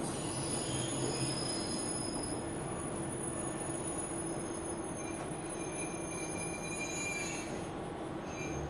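A KiHa 120 diesel railcar running on the rails, heard from inside the car as a steady rumble. High-pitched squealing from the wheels shifts in pitch and stops near the end.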